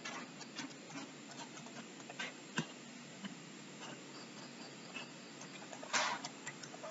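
Computer keyboard keys being typed: soft, irregular clicks spaced out over several seconds, with a louder short rustle about six seconds in.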